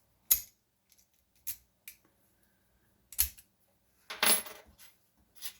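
Lock pick and tension wrench working a Master Lock No. 3 padlock: several sharp metallic clicks, and a longer scraping rattle about four seconds in.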